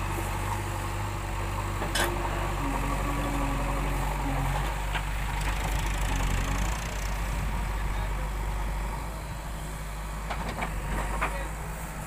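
JCB 3DX backhoe loader's diesel engine running steadily while the backhoe arm digs soil, its note shifting a little as the hydraulics take load. A sharp knock comes about two seconds in, and a few light clicks near the end.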